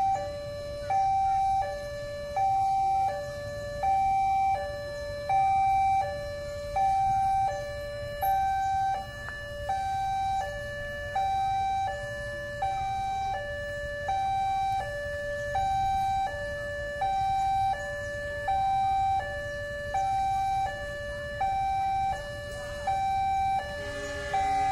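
Railway level-crossing warning alarm sounding its two-tone electronic signal, a high note and a lower note alternating evenly and repeating about every one and a half seconds, over a low hum of idling traffic. The alarm signals that a train is approaching while the barriers are down.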